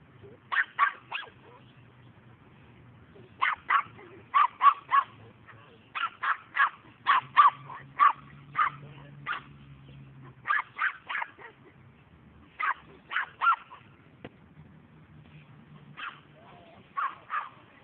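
Puppy barking in short, sharp yaps, in quick runs of two to four with short pauses between runs.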